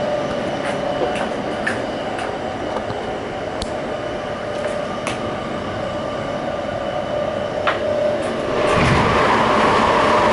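Kintetsu electric train running, heard from inside the passenger car: a steady rolling noise with a constant hum and a few faint clicks. About eight and a half seconds in it grows louder into a broader rushing noise.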